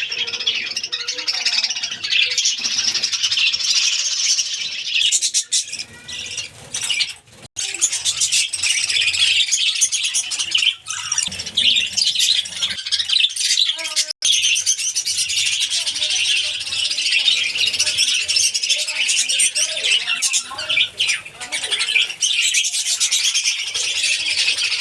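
A flock of budgerigars chattering and warbling all at once: a dense, continuous mass of high chirps and squawks. It breaks off for an instant twice.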